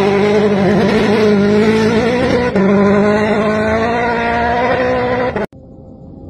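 Hyundai i20 N Rally1 rally car's turbocharged four-cylinder engine held at high revs while the car slides on gravel, a loud, steady note with a brief dip about two and a half seconds in. Near the end the sound cuts off abruptly to a much quieter, more distant engine that slowly grows louder.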